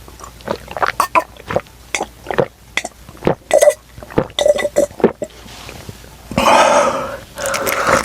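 Close-miked gulping of milk: a run of short swallowing sounds, about two a second, followed about six seconds in by a louder, noisier sound lasting about a second.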